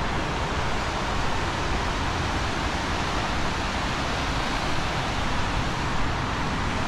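Steady rush of a fast white-water river, an even roar of water without a break.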